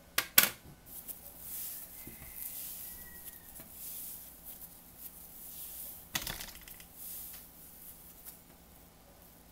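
Thick blue glitter slime being pressed and stretched by hand: two sharp clicks at the start, then a crackling of the slime's texture pulling apart, with another cluster of clicks about six seconds in.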